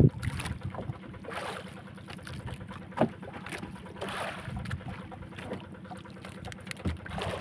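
Water sloshing against a small fishing boat and wind on the microphone while a handline is hauled in over the side. A sharp knock comes right at the start and another about three seconds in, over a steady low hum.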